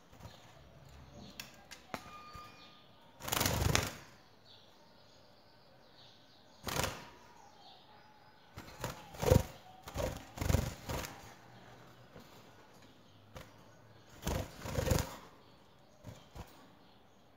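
A goldfinch flutters its wings in a wire cage: several short bursts of flapping, with a cluster of them from about nine to eleven seconds in.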